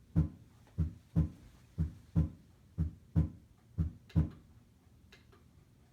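Simulated heart sounds from a SAMII auscultation simulator: a slow, regular lub-dub about once a second, around 60 beats a minute, the sound of bradycardia. The beats stop about four seconds in.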